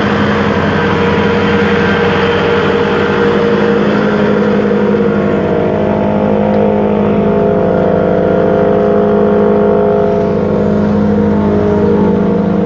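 Truck engine running steadily, with a slight change in its tone about halfway through.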